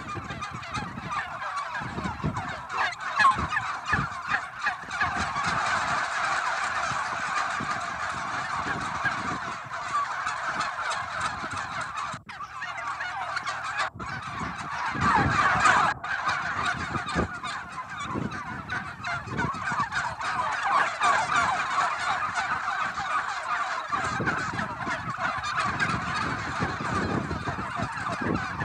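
A large flock of white domestic turkeys gobbling and calling all at once in a continuous chatter. The sound drops out briefly twice near the middle.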